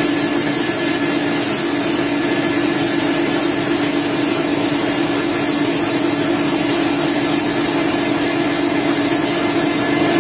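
Factory machinery running with a steady, unchanging drone: a low hum under a bright high hiss.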